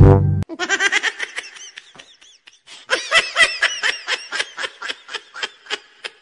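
Music cuts off, then high-pitched laughter comes in quick repeated pulses, in two bouts: the first dies away about two seconds in, and the second starts about three seconds in.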